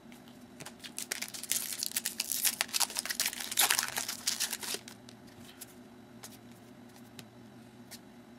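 Foil wrapper of a Topps UFC Main Event trading card pack being torn open and crinkled by hand for about four seconds. After that come only faint scattered clicks as the cards are handled.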